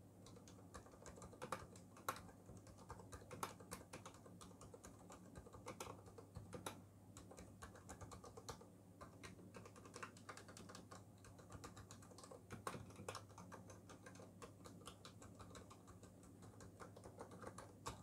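Fast typing on a Ducky One 2 Mini 60% mechanical keyboard: a quiet, continuous, irregular patter of key clicks with a few louder strokes, picked up by a clip-on mic on the typist's shirt. A faint steady low hum sits underneath.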